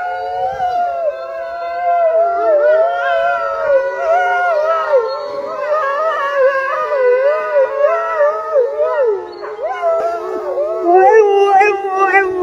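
A chorus of canine howls: a wolf pack howling with a dog joining in. Several long voices overlap and glide up and down, swelling louder near the end.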